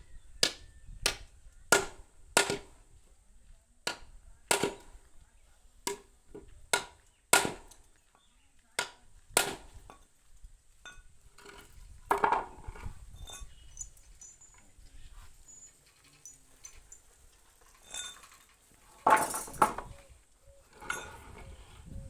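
Hand hammering in carpentry work: about a dozen sharp, ringing hammer blows at a steady working pace, stopping about halfway through, followed by scattered lighter knocks and clinks of tools being handled.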